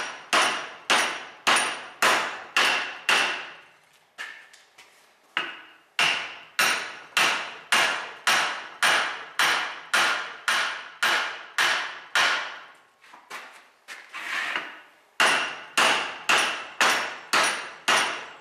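Hammer tapping steadily on the seized, rusted pin of a cast-iron Allis-Chalmers wheel eccentric, about two metallic, ringing blows a second. Twice the tapping stops for about two seconds, then resumes. The light blows are working the corroded pin back and forth to free it.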